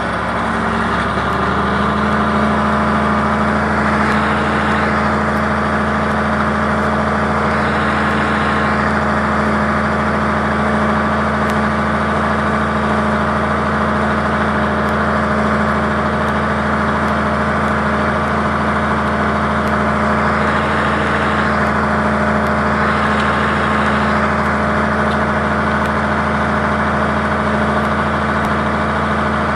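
John Deere tractor engine running steadily while pulling a disc harrow through the soil. Its pitch rises in the first second or two, then holds even.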